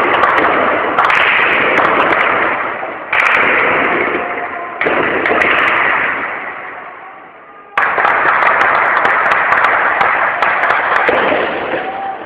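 Heavy gunfire: a dense, crackling din of shots that starts up sharply again three times, each burst tailing off slowly.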